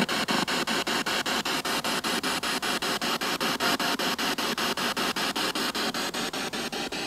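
Spirit box, a radio rapidly sweeping through stations, giving out a steady hiss of static chopped into quick, even pulses several times a second.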